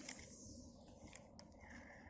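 Fishing reel during a cast: a faint whir falling in pitch over about a second, then two sharp clicks. A steady high tone starts near the end.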